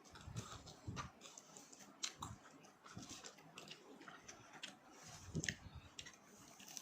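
Close-mic biting and chewing of crispy fried chicken: faint, irregular crunches and mouth clicks.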